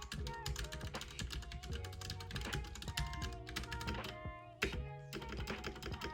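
Ducky One 2 Mini mechanical keyboard being typed on, a rapid run of key clicks that thins out after about four seconds, with one louder knock shortly after.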